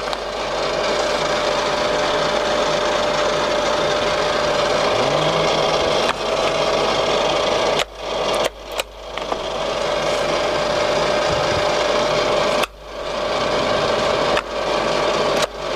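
Colchester Triumph 2000 centre lathe running, its geared headstock and feed gearing giving a steady mechanical whir with a constant whine, as the carriage moves under power feed. The sound cuts out sharply a few times and comes straight back.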